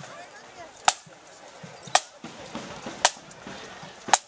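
Marching band side drums struck together on a single tap, four sharp cracks about a second apart, keeping a steady marching beat.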